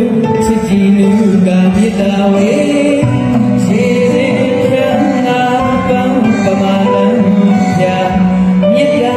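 A man singing a Burmese song into a microphone over live band accompaniment, continuous and loud.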